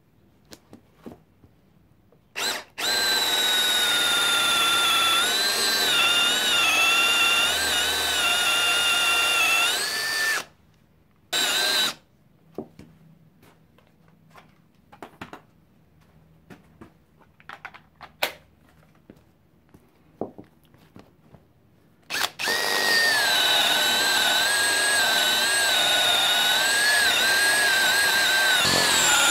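Cordless drill boring into the end grain of a totara log with a large wood bit, its motor whine wavering in pitch as the bit loads up and frees. It runs from about three seconds to ten, gives a short burst near eleven seconds, and starts again after about twenty-two seconds; in between there are only scattered light taps.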